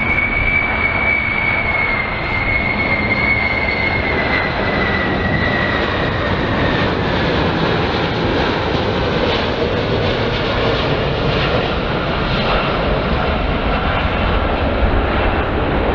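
Boeing 747 (the US Air Force VC-25, Air Force One) on landing approach with gear down: its four jet engines make a steady rushing noise with a high fan whine that slides slowly down in pitch over the first several seconds as the jet passes.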